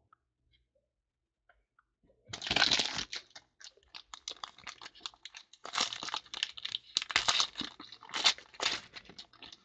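Foil trading-card pack wrapper being torn open and crinkled by hand, starting about two seconds in with irregular crackling and rustling bursts.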